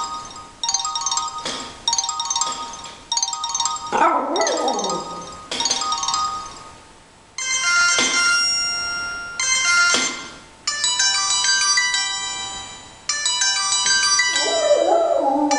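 Mobile phone ringtones playing: a short chiming melody repeating over and over, then a different, busier electronic ringtone from about halfway through. A Volpino Italiano dog howls along, a gliding howl about four seconds in and a wavering howl near the end.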